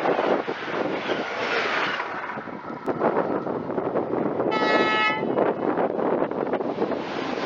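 Rushing noise of a passing ICE high-speed train, with wind buffeting the microphone. About halfway through, an approaching ICE gives one short, steady horn blast lasting under a second.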